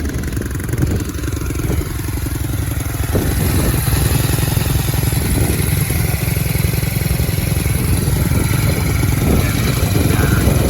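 Tao Tao Chinese ATV's small single-cylinder four-stroke engine running steadily, getting louder about three to four seconds in. It is running again after sitting for three years, on a new carburetor and ignition.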